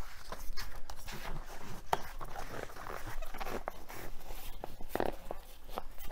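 Hutchinson Fusion 5 tubeless-ready road tire being worked onto a carbon rim by hand: the rubber bead rubs against the rim, with many short clicks and snaps as it seats, going on easily.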